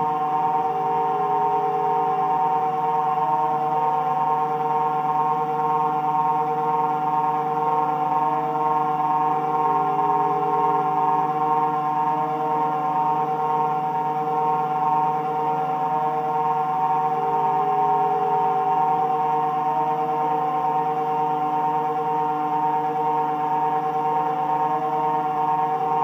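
Taig CNC milling machine cutting brass with a fine end mill: a steady high spindle whine, with machine tones underneath that jump between pitches every second or so as the axes move.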